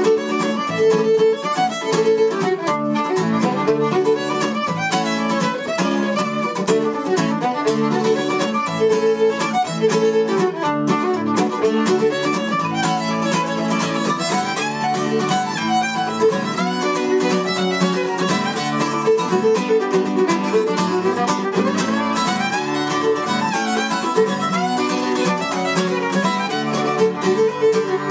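Fiddle and guitar playing a Celtic reel together, the bowed fiddle carrying the melody over the guitar's accompaniment.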